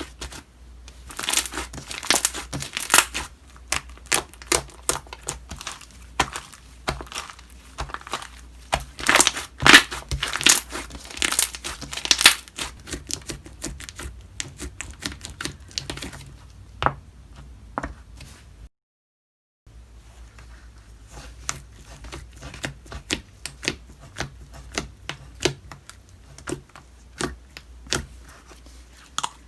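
Homemade slime being squished and stretched by hand, making a dense run of sticky clicks and crackling pops, loudest in the first half. About two-thirds of the way through, the sound drops out completely for about a second at an edit.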